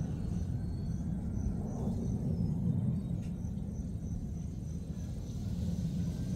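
Outdoor ambience: an insect chirping faintly and evenly a few times a second, high-pitched, over a steady low rumble.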